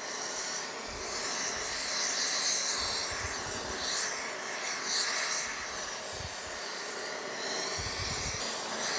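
Oxy-fuel torch with a rosebud heating tip burning with a steady hiss, with a few brief low rumbles in the flame. The flame is heating a seized steel nut toward red heat so that it will break loose.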